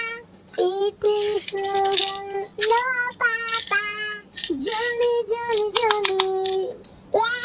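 A high-pitched voice singing a song in short phrases, some notes held for about a second.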